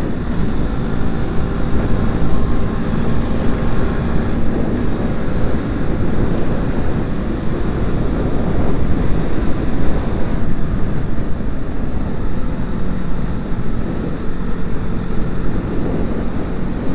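Wind rushing over the microphone while riding a KTM motorcycle at speed, with the engine running steadily underneath.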